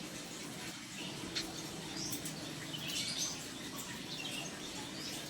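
Small birds chirping in short, scattered high calls over the steady trickle of pond water.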